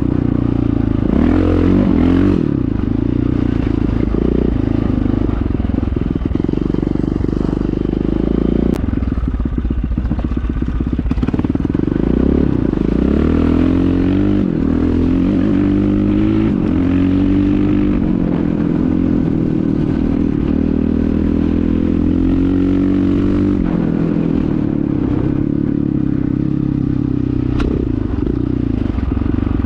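1997 KTM 620 LC4 single-cylinder four-stroke engine running through an Akrapovic exhaust, its pitch rising and falling repeatedly as the throttle is worked.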